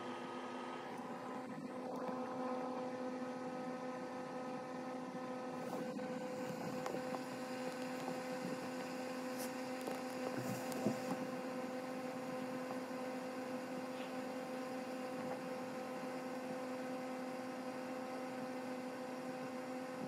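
Steady machine hum made of several held, unchanging tones, with a few faint clicks and a brief louder sound about eleven seconds in.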